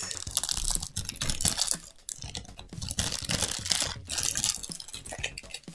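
Gold metallic foil wrapper crinkling and being torn open by hand, close to the microphone: a dense, irregular crackle with short lulls.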